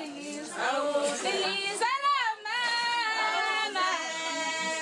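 Women's voices singing without instruments, several voices overlapping on held notes; about two seconds in, one voice glides up to a high note and falls back.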